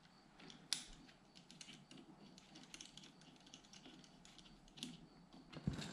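Faint, irregular clicks and light rattling of metal seatbelt hardware being handled at the base of a car seat, with a sharper click about a second in and a dull thump near the end.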